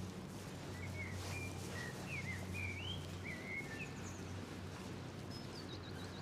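Songbirds chirping in short notes that sweep up and down, then a quick run of repeated higher notes near the end, over a steady low outdoor hum.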